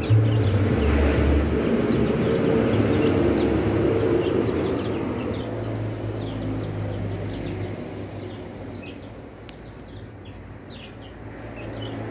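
Flock of 20-day-old chicks peeping in short, high chirps as they forage, over a low background rumble that eases off about halfway through.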